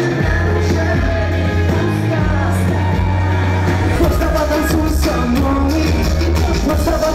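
Pop song with a steady beat, a deep bass line and a singing voice.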